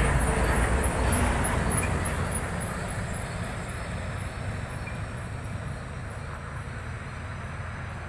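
Heavy tractor-trailer's diesel engine pulling a flatbed loaded with a concrete beam, a low rumble that fades steadily as the truck drives away.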